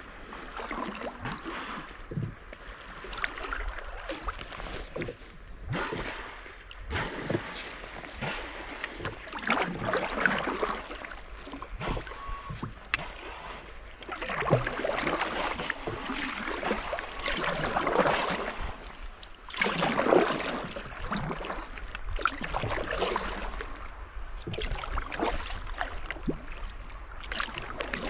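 Sea kayak being paddled on calm sea: paddle blades splashing and water running along the hull, swelling and fading every couple of seconds.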